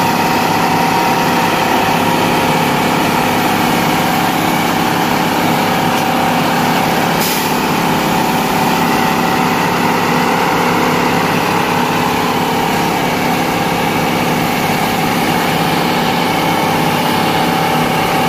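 Diesel engine of a Plasser 09-32 CSM track tamping machine (sleeper packing machine) running steadily, with a single short click about seven seconds in.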